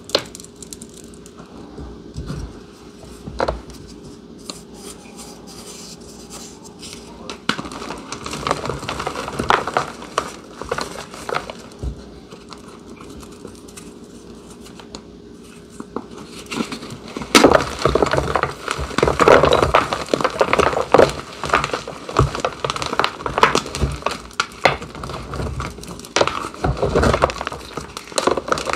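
Blocks of gym chalk being crushed, crumbling with irregular crackles and crunches, sparse at first and then denser and louder from about halfway.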